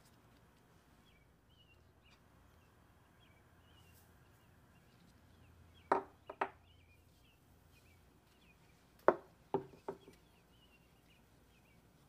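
Two quick groups of three sharp knocks about three seconds apart, over faint background birdsong chirping steadily.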